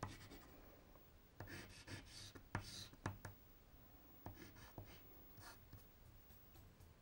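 Faint rubbing of fingertips blending colour on paper, in a few short strokes with pauses between them.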